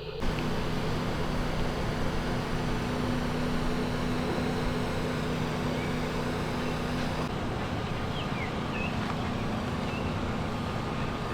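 A motor runs steadily with a low hum over a hiss. The hum stops near the end, and a few faint short chirps come about two-thirds of the way through.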